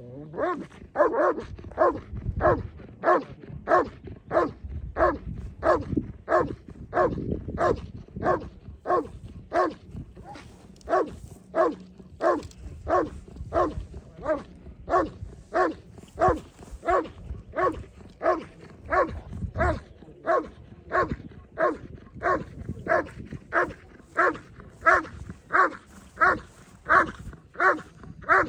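German Shepherd barking steadily at a motionless protection helper, about two sharp barks a second without a break: the hold-and-bark guarding of an IGP protection routine.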